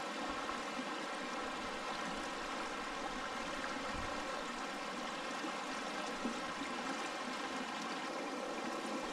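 Fast river water rushing steadily in a trout stream.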